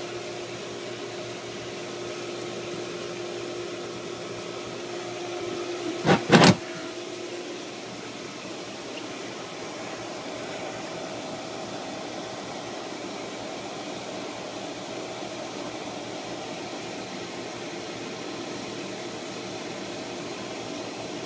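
Pool pump running on high speed, pushing water through the heater plumbing: a steady hum with a rushing of flowing water. Two sharp knocks about six seconds in.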